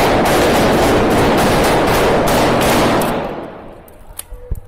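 Sudden, very loud burst of close-range automatic gunfire, a dense rattle of shots lasting about three seconds, then fading away. A few single sharp shots follow near the end.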